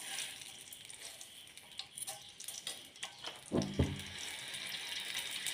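Mustard seeds sizzling in hot oil in a steel pan, with faint scattered ticks as the seeds heat toward popping. A couple of short knocks come about three and a half seconds in.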